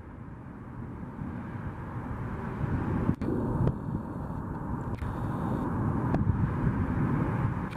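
Jet aircraft engine noise, a broad rumble that grows steadily louder, with a few brief clicks and a faint high whine partway through.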